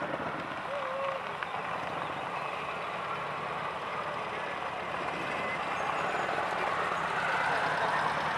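Motor trike engines running steadily, with a murmur of voices underneath.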